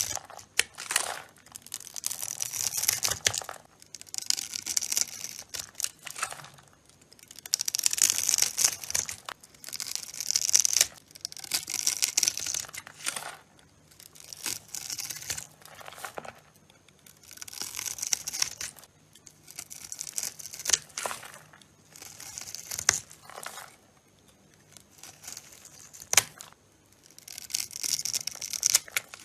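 A blade cutting through a bar of dry soap again and again, each cut a crisp scraping crackle lasting a second or two, with short pauses between cuts.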